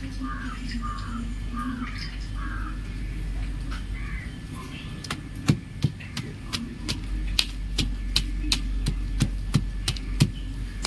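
Chalk crumbling: a run of sharp, crisp cracks and snaps, two or three a second, starting about halfway through.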